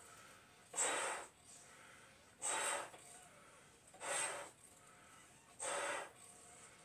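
A man blowing up two clear Bobo balloons by mouth through one connector, breathing hard in a steady rhythm: a loud rush of breath about every one and a half seconds, four times.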